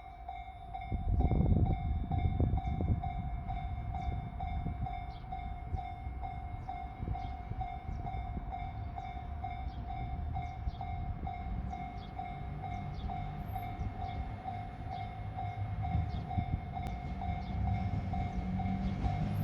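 Japanese level-crossing warning bell ringing in even strokes, about one and a half a second, while a JR Shikoku Series 2600 limited express diesel railcar passes with a low rumble that swells about a second in.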